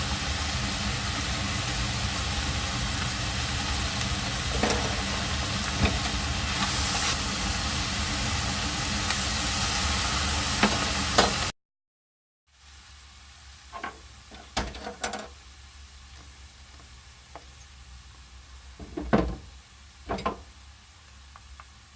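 Cabbage and ground meat stir-frying in a pan: a steady loud sizzle with occasional sharp clicks, cut off abruptly after about eleven seconds. After a brief silence comes a much quieter stretch with a few scattered knocks.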